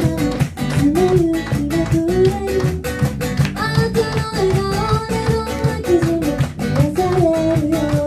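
A woman singing to her own acoustic guitar, which she strums in a steady rhythm.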